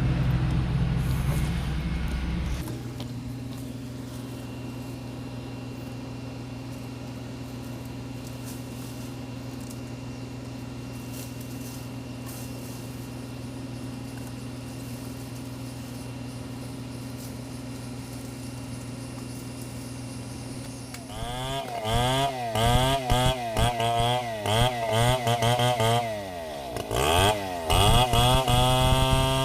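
Two-stroke chainsaw dropping to a steady idle after a couple of seconds and idling for a long stretch, then revved hard about three-quarters of the way through, its pitch rising and falling repeatedly as it cuts into a large log, with a brief drop near the end.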